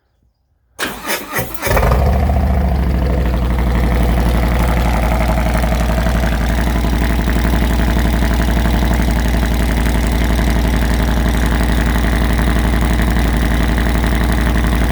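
Harley-Davidson Milwaukee-Eight V-twin cranking on the starter about a second in, catching, and then idling loudly and steadily. It runs through a slip-on muffler whose baffle has been modified and reinforced with duct tape.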